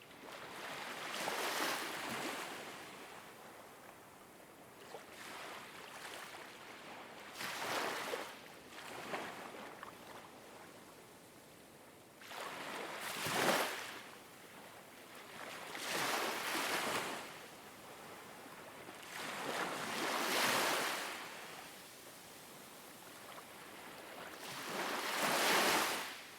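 Ocean waves washing in, about six of them, each surge swelling and falling away over a second or two above a steady hiss.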